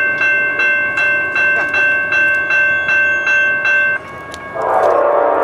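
A grade-crossing warning bell rings in even strokes, about three a second, and stops about four seconds in. Under half a second later a Norfolk Southern diesel locomotive's Nathan K5LA air horn starts sounding loudly for the crossing as the train approaches.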